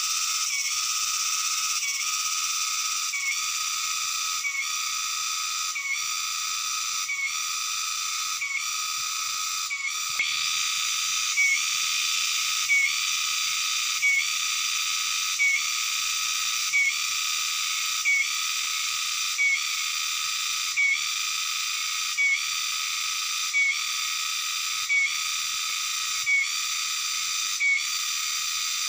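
Insects shrilling in a steady high-pitched drone that pulses about every second and a quarter. From about ten seconds in, a sharper, louder chirp marks each pulse.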